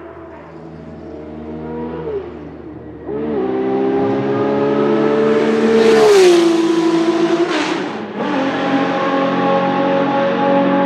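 Porsche 917K's air-cooled flat-12 racing engine at full throttle as the car accelerates past, the note dropping in pitch as it goes by about six seconds in. A brief break in the note near eight seconds marks a gear change, and it then pulls away hard.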